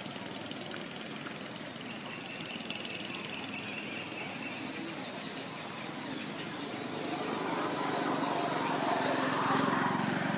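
Steady drone of a distant engine over outdoor background noise, growing louder over the last few seconds.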